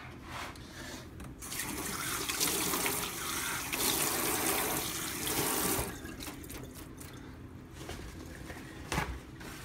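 Kitchen tap running into a stainless steel sink for about four seconds as hands are rinsed under it, then shut off. A short knock comes near the end.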